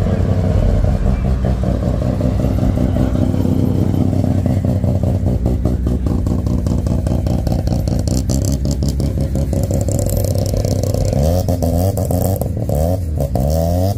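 A vehicle engine running loudly with a low exhaust note. Near the end its pitch climbs several times in quick succession as it is revved.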